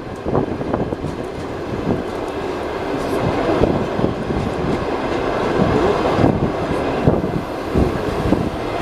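Passenger railway carriage rolling along the track: a steady rumble of wheels on rails with scattered irregular knocks.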